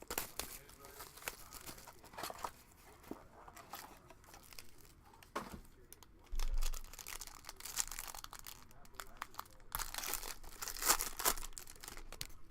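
A trading-card pack wrapper being torn open and crinkled, with rustling and clicking as the cards are handled, busiest near the end. A short dull bump about six seconds in.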